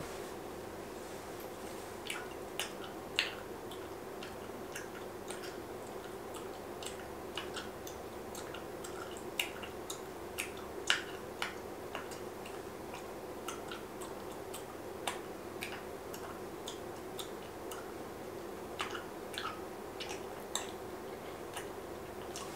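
Chewing gum smacked with the mouth open: irregular sharp clicks and smacks, a few at a time with gaps between, over a steady low hum.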